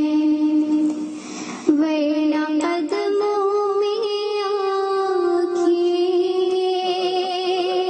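A girl singing an Urdu naat solo into a microphone. She holds long, drawn-out notes with a slight waver and steps up in pitch a couple of times, with a short breath about a second in.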